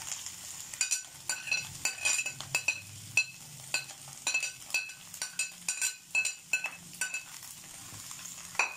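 A steel spoon stirring shredded cabbage, carrots and onions in a frying pan, clinking and scraping against the pan about two to three times a second, each clink with a short metallic ring. A faint steady sizzle of frying runs underneath.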